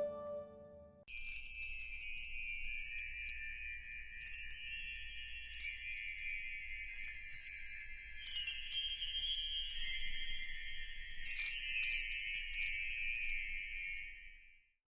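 Jingle bells tinkling high and continuously, sleigh-bell style, starting about a second in and stopping just before the end.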